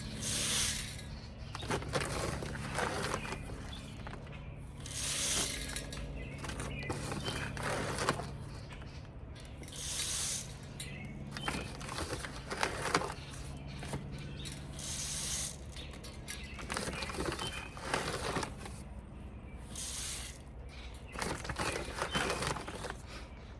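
Birdseed being scooped from a bag and poured into a bird feeder: a rustling, pouring hiss of about a second at a time, repeated every few seconds.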